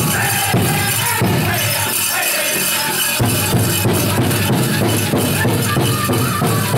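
Powwow drum group singing a chicken dance song over a fast, steady beat on the big drum, with the dancers' bells jingling.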